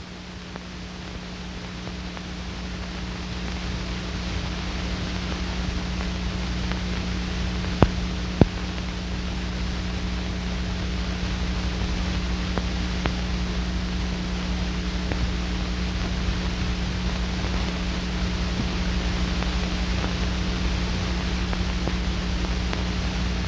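Steady hiss and hum of an old optical film soundtrack with no narration, rising slightly in level over the first few seconds. Two sharp clicks come close together about eight seconds in.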